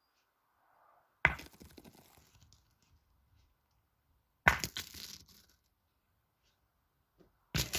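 Pétanque boules shot in quick succession: three sharp impacts about three seconds apart, each followed by a short rattle as the boule skids and scatters gravel.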